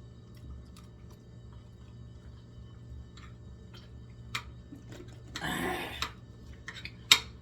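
Eating sounds: scattered light clicks of cutlery against dishes, a brief breathy swell around five and a half seconds in, and a sharp clink near the end, the loudest sound here.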